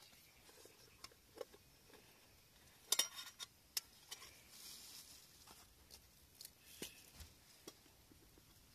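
Light scattered clinks, taps and rustles of camping cookware being handled as a small gas burner is taken out of a Snow Peak Trek 700 mug, with a quick run of sharp clicks about three seconds in.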